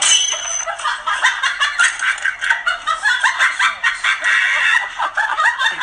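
High-pitched, rapid laughter-like sound in quick choppy bursts.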